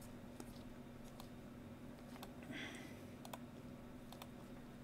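Faint, scattered clicks and a brief soft brushing sound about halfway through, from stiff chrome trading cards being flipped through in gloved hands, over a faint steady electrical hum.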